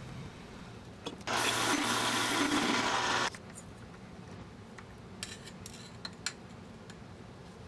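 Mini metal lathe cutting mild steel for about two seconds, starting and stopping abruptly, then a few light metal clicks as the tool post is handled.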